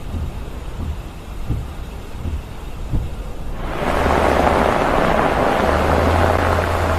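Low rumble of a car driving through a snowstorm. Just past halfway a loud, steady rushing noise sets in over it.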